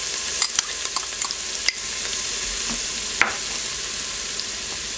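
Diced onion and garlic sizzling in hot olive oil in the stainless steel inner pot of an Instant Pot on its sauté setting: a steady sizzle with a few sharp clicks in the first few seconds.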